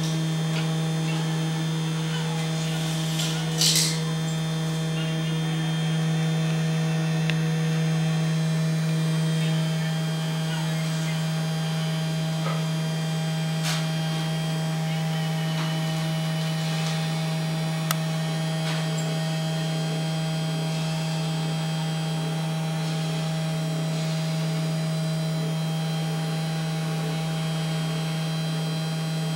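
Small desktop PCB milling machine running, its DC spindle motor giving a steady hum with several overtones. A brief scrape comes about four seconds in, and a couple of sharp clicks come later.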